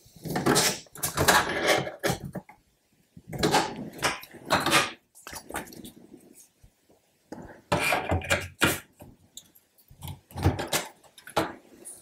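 Parts of a plastic computer case and its metal shield being handled and fitted together during reassembly: several short bursts of clattering and knocking with quiet gaps between.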